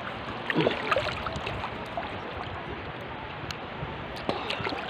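Steady rush of water along the hull of a boat under way.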